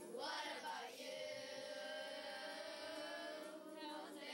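Children's voices singing together. A quick swoop up and down in pitch is followed by one long held note of about three seconds, with another swoop near the end.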